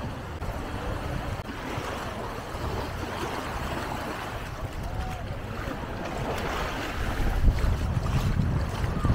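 Gentle surf washing onto a sandy shore, with wind buffeting the microphone; the wind rumble grows stronger near the end.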